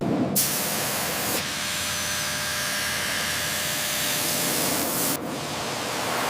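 A steady spraying hiss, as from a pressurised cleaning jet, that starts and stops abruptly. It turns brighter about half a second in and a little duller after about five seconds.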